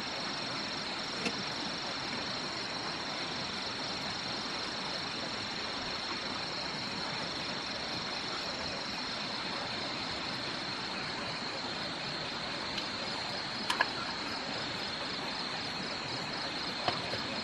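Night insect chorus: crickets trilling steadily in a high, pulsing band over the even rush of a forest stream. A few light clicks stand out, one about a second in and two close together about fourteen seconds in.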